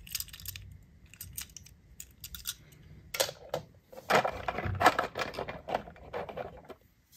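Small toy cars clicking and clattering against one another as they are rummaged through by hand: scattered sharp clicks at first, turning into a denser clatter about three seconds in, and stopping just before the end.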